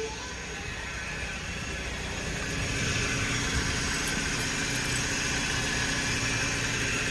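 2006 Scion xB's four-cylinder engine idling steadily, heard from under the open hood; the running noise grows louder about two and a half seconds in.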